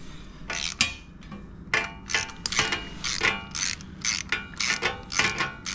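Socket ratchet clicking in short repeated bursts, about two or three a second, with a light metallic ring. It is unscrewing the spark plug from a Honda CRF50's cylinder head, a plug that was done up tight.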